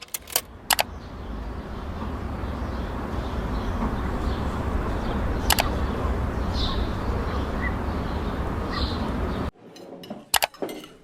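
Steady background noise heavy in low rumble, with a few sharp clicks at the start and one near the middle. It cuts off abruptly near the end, followed by a couple of light clicks.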